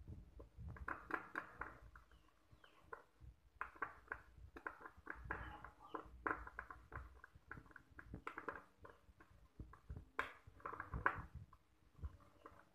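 Metal spoon stirring a thick curry-powder paste in a ceramic bowl: irregular runs of light clicks and scrapes as the spoon knocks and drags against the bowl, loudest about ten seconds in.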